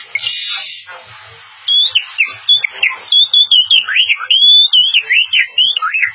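A boy whistling an imitation of birdsong: a quick run of high, clear whistled chirps and swooping notes, some rising and some falling, starting about a second and a half in.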